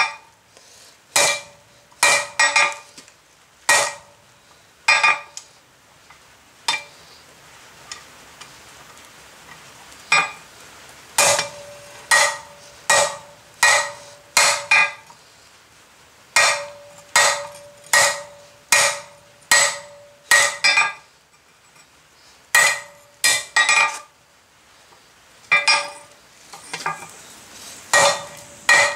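Hand hammer striking red-hot steel bar on an anvil face, each blow ringing with a bright metallic tone: a blacksmith drawing out the rein of flat jaw tongs. The blows come in runs of about two to three a second, broken by short pauses.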